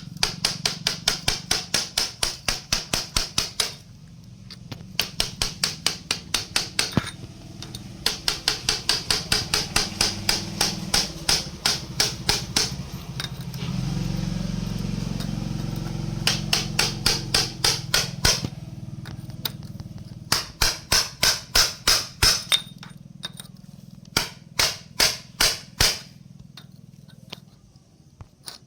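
Hammer tapping a punch against a bicycle freewheel's steel cover in quick runs of sharp metallic strikes, about five a second, with short pauses between runs.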